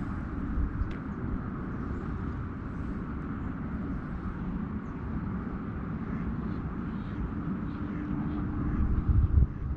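Steady outdoor background noise, a low rumble with a hiss above it. It grows louder and more uneven near the end, with a few low thumps.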